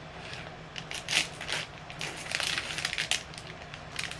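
Close-miked eating sounds: a child biting into and chewing a Bbangtoa ice cream cake sandwich, in a run of irregular short crunchy, squishy bursts.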